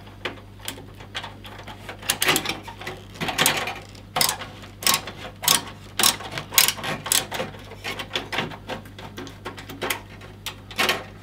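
Screwdriver turning a screw into a PC case's expansion-slot bracket: irregular metal clicks and scrapes as the screw catches in the case's crudely punched threads.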